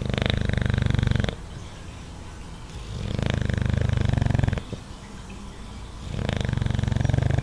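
English bulldog snoring moderately in its sleep: three long snores about three seconds apart, each with a fine fluttering rattle.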